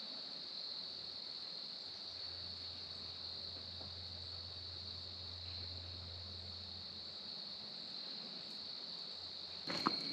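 Evening insect chorus, a steady high-pitched buzz, with a faint low hum for a few seconds in the middle and a few clicks near the end.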